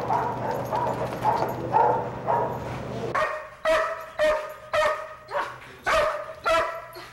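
Police dog barking in a rapid run of sharp barks, about two a second, starting about three seconds in. Before the barks there is a steady low hum.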